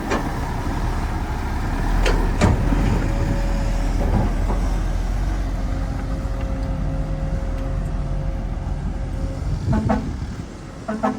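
Heavy diesel machinery running steadily, with a few sharp knocks and clanks now and then.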